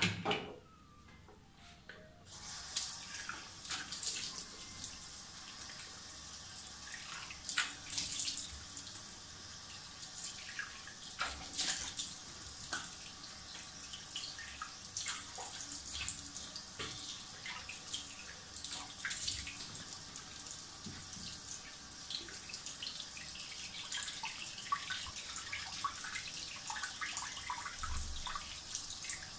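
A tap running into a bathroom sink, turned on about two seconds in, with repeated splashes as water is scooped up to rinse shaving lather off the face.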